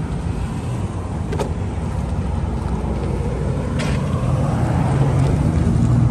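Chevrolet Silverado pickup's engine running at a steady idle.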